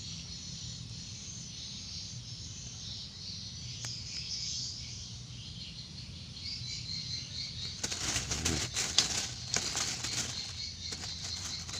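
Steady high insect chirring of a swamp, then about eight seconds in, a few seconds of rapid flapping and splashing from a hooked climbing perch (betok) thrashing as it is landed.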